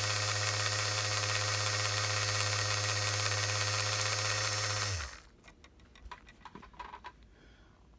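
Postwar American Flyer Royal Blue locomotive's electric motor running on transformer power, its armature spinning with a steady buzzing hum. The hum cuts off about five seconds in, leaving a few faint handling clicks.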